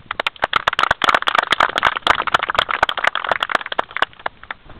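A small group of people clapping: many quick, irregular claps that build up, run thickest through the middle and thin out near the end.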